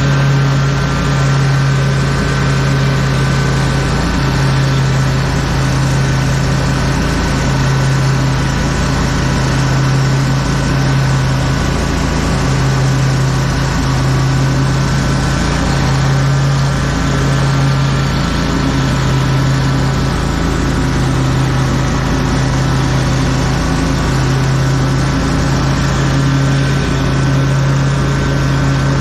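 Lawn mower engine running steadily at a constant speed, with an even, unchanging pitch.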